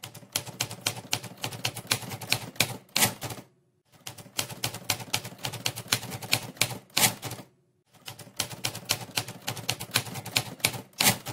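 Manual typewriter keys clacking in three quick runs of typing. Each run ends with a louder strike, and there is a brief pause between runs.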